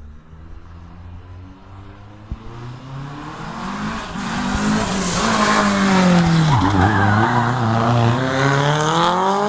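Lancia Delta HF Integrale Evo Group A rally car's turbocharged four-cylinder engine approaching at full stage pace, growing steadily louder. The revs dip about six and a half seconds in as it slows for the bend, then climb again as it accelerates out right past.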